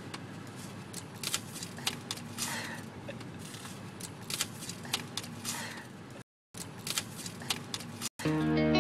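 Steady background hum inside a car with scattered sharp clicks and rustles of handling; the sound cuts out briefly twice, and electric guitar music starts near the end.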